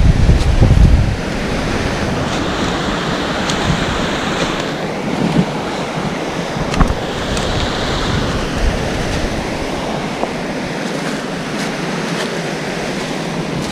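Waterfall rushing steadily, with wind buffeting the microphone for about the first second and a few light clicks.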